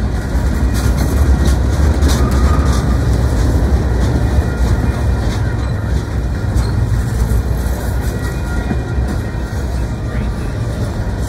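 Freight train boxcars rolling past at close range: a steady low rumble of steel wheels on the rails, with scattered clicks and clanks from wheels and couplers.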